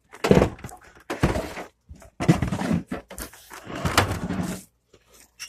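Handling noise from the air conditioner and its mounting rail: four bursts of scraping and knocking, with a sharp click about four seconds in.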